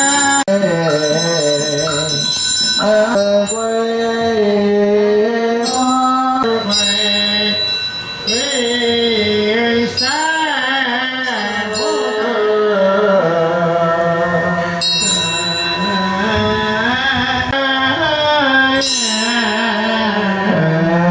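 Melodic devotional chanting sung over sustained instrumental accompaniment, with a few sharp struck accents along the way.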